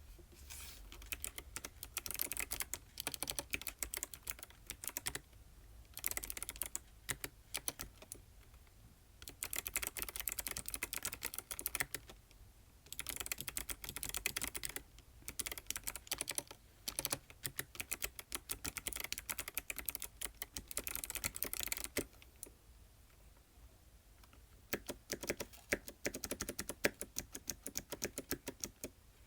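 Typing on an ABKO ADK05 mechanical keyboard with white switches: fast runs of key clicks in bursts of a few seconds, broken by short pauses.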